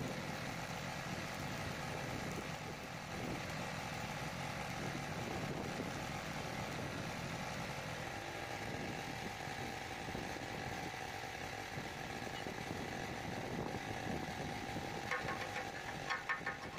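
Steady machine noise with a faint held tone, joined by a rapid crackling near the end.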